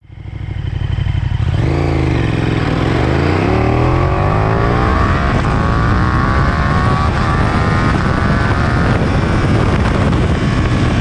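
KTM 1290 Super Duke R Evo's V-twin engine pulling under acceleration, its pitch climbing steadily for several seconds before levelling off.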